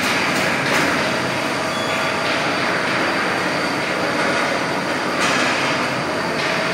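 Open-section cold roll-forming line running, steel strip passing through the forming roll stands: a steady, loud mechanical running noise.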